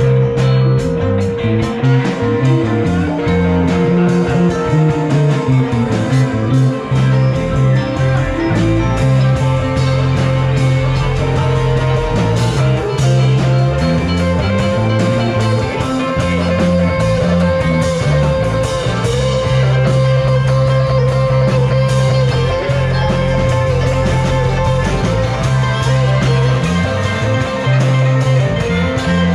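Live band playing with electric guitars, banjo and drum kit.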